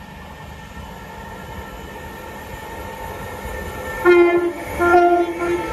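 Train horn sounding two short blasts about four and five seconds in, over the steady low hum of electric trains.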